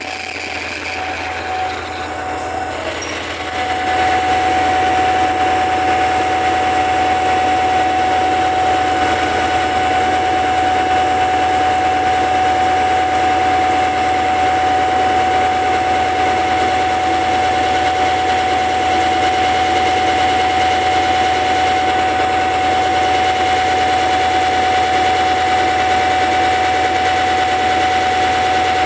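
Passenger train standing at the platform with its machinery running: a steady hum with a constant whining tone over it, getting louder about four seconds in and then holding even.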